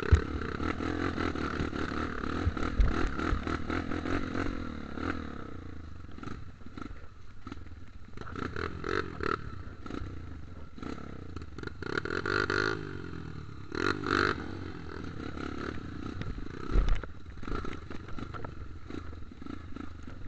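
Off-road dirt bike engines running at low trail speed, the pitch rising and falling with the throttle, with two short revs about 12 and 14 seconds in. Sharp knocks and clatter come from the bikes over rough, muddy ground, one at the start and one about 17 seconds in.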